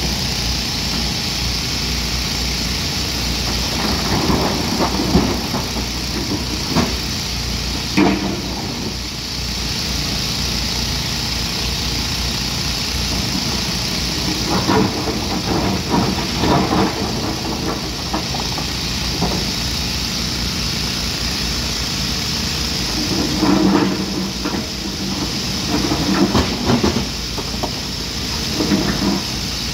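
Hyundai 215 hydraulic excavator's diesel engine running steadily, with bursts of clatter every several seconds as it loads a dump truck.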